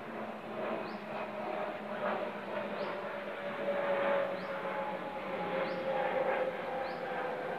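A steady motor-like hum whose pitch slowly falls, over a background hiss, with a short high chirp repeating every second or so.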